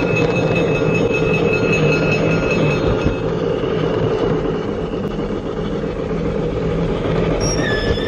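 LGB model of the Saxon IV K narrow-gauge steam locomotive running under way. Its mfx sound decoder plays the steam running sound through the locomotive's loudspeaker, mixed with the steady rolling noise of the model on garden-railway track. Near the end a high squeal sets in.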